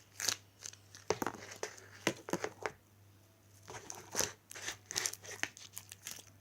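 Very sticky slime being worked at in its plastic tub, giving off irregular crinkly crackles and pops, with a short lull in the middle.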